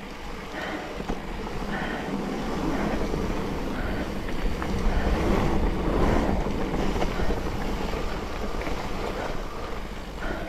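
Wind rushing over the microphone and mountain bike tyres rolling on a dirt trail while riding through berms: a rough, unsteady rushing noise that swells and eases.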